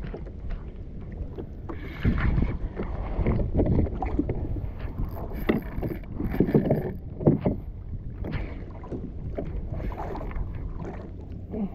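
Wind buffeting the microphone over water splashing and knocking around a fishing kayak, with irregular swishes and short knocks.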